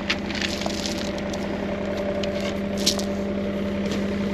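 An engine idling steadily, with a few faint scrapes and crunches of shovels working into gravel.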